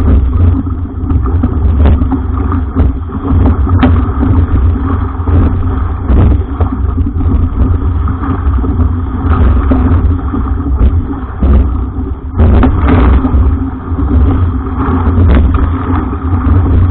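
Strong wind buffeting the microphone aboard a sailing jangada: a heavy, gusting rumble that swells and drops, with occasional sharp knocks.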